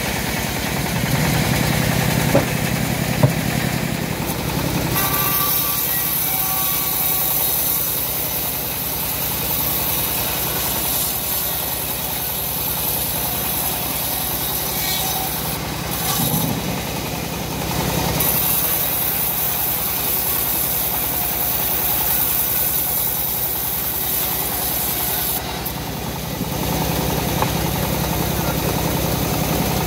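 Engine-driven homemade bandsaw mill running steadily, the engine's hum under the hiss of the band blade cutting teak. The cutting hiss fades and returns a few times as slabs are fed through.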